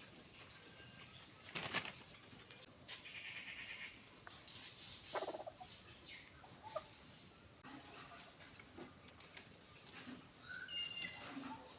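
Faint outdoor ambience: scattered small rustles and clicks over a steady hiss, with a few short, high bird chirps about eleven seconds in.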